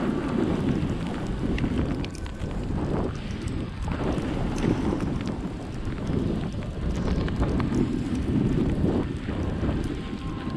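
Wind buffeting the microphone of a camera moving quickly downhill over snow, a dense rushing noise that swells and fades every second or two, with the hiss of sliding over the snow underneath.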